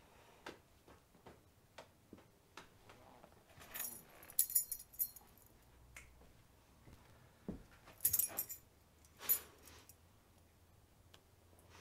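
A small bunch of metal keys jangling as they are dangled and shaken by hand, in short bursts about four seconds in and again around eight and nine seconds, with soft clicks and rustles between.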